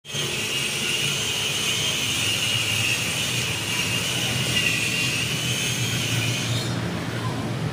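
Chevrolet Spin's AC blower motor running with a steady, slightly wavering hiss over a low rumble. The hiss stops suddenly near the end. The hiss is the fault: the blower motor still runs but makes noise and is due for replacement.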